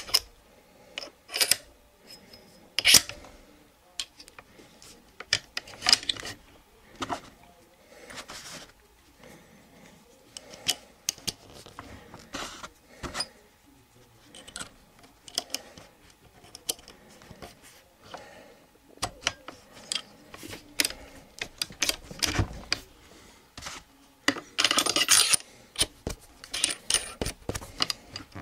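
Irregular metallic clicks, clinks and light scrapes of steel shotgun parts being handled: the gas piston, gas piston housing and split washer of a Charles Daly N4S semi-auto being slid and seated on the magazine tube, with a quicker run of clinks near the end.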